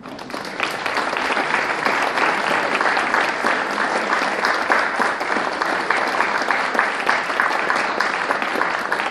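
Audience applauding: dense clapping that swells up over the first second and then holds steady.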